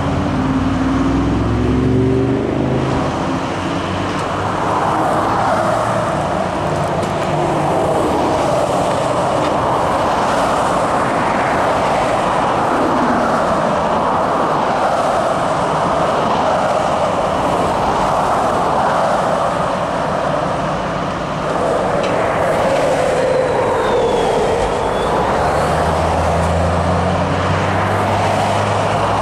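Highway traffic going by, a steady rush of tyres and engines that swells and eases as vehicles pass, with a deeper engine sound passing near the start and again near the end.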